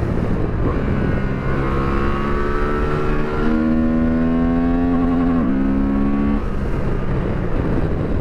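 Honda Transalp 750's parallel-twin engine accelerating hard, its note climbing steadily in pitch for several seconds. About five seconds in it warbles briefly, then dips and falls away, under steady wind and road noise.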